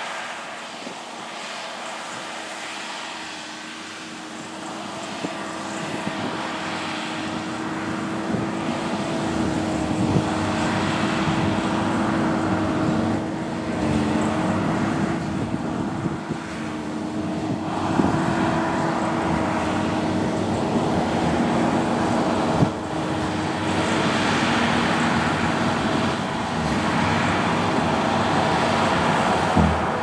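Claas Tucano 560 combine harvester running while harvesting barley: a steady engine and threshing hum with a held tone, growing louder over the first ten seconds or so as the machine comes closer, then staying loud.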